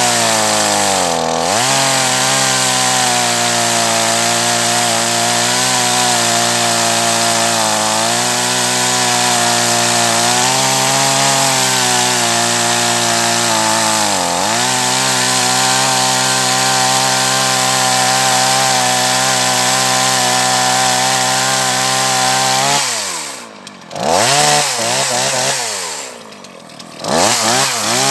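Dolmar PS-34 two-stroke chainsaw running at full throttle through a dry acacia log, struggling in the dense wood, its pitch sagging briefly under load twice. Near the end the throttle drops to idle twice, with a short rev between, and then the engine revs up again.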